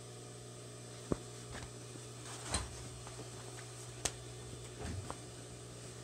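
Cotton canvas being handled and laid down on a sewing-machine table: a few light knocks and rustles, the sharpest about a second in and another about four seconds in, over a steady low hum.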